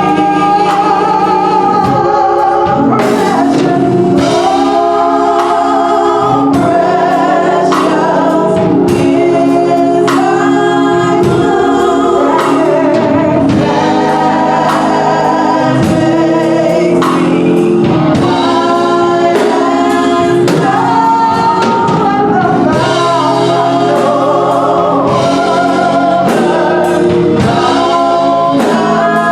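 Gospel music: a choir singing over instrumental backing with a steady beat.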